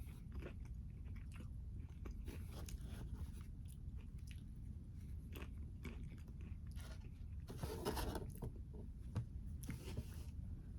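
Close-miked mouth sounds of someone eating: wet chewing and small smacking clicks, with two louder crunching bites in the second half.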